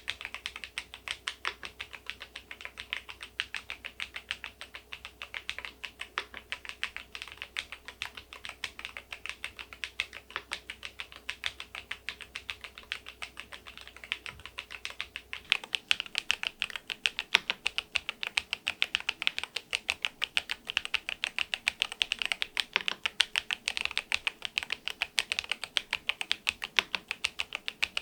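Fast, continuous typing on an aluminium-cased magnetic (Hall-effect) switch keyboard, Keysme AIM04 HE: a dense run of key clacks. The keystrokes get louder a little past halfway.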